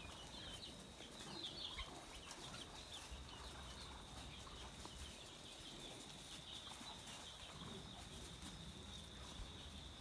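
Faint calls of farmyard fowl over a steady high-pitched chirping, with clusters of quick chirps in the first two seconds and again near the end.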